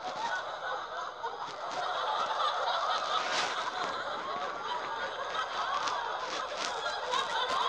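Audience laughing and chuckling: many voices at once, growing louder about two seconds in.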